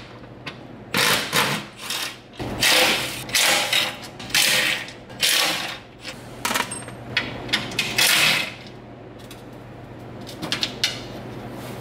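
Ratchet wrench clicking in about ten short bursts as the bolts holding a metal skid plate under the car are undone, stopping about two thirds of the way in. A few light clicks follow near the end.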